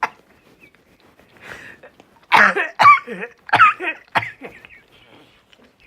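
A person sneezing from hay fever: a soft intake of breath, then four loud sudden sneezes in quick succession over about two seconds.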